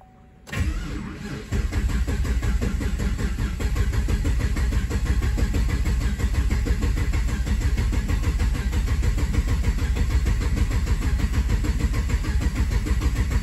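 Starter cranking a 2015 Camaro SS V8 in clear-flood mode, with the throttle held to the floor, for a relative compression test. It turns over steadily in an even rhythm without catching, starting about half a second in, growing louder a second later, and cutting off at the end. The engine is suspected of flooding or a timing fault behind a misfire.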